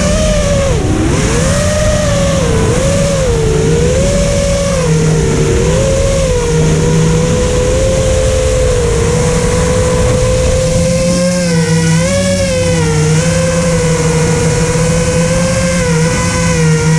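FPV freestyle quadcopter's brushless motors and propellers whining as heard from the onboard camera, the pitch swinging up and down with the throttle over the first several seconds, then holding steadier, with a short dip about twelve seconds in. A steady low hum and a rushing noise run under the whine.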